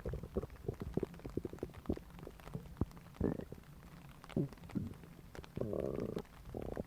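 Human stomach growling and gurgling: a run of small pops and bubbling gurgles, a short pitched gurgle about three seconds in and another a little later, then a longer pitched growl near the end.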